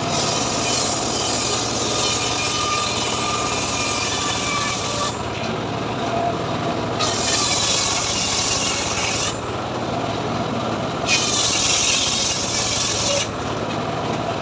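Home-built engine-driven circular sawmill cutting leucaena (lamtoro) wood. A steady motor hum runs underneath, and the blade's hissing cut comes in three stretches, dropping out briefly about 5, 9 and 13 seconds in.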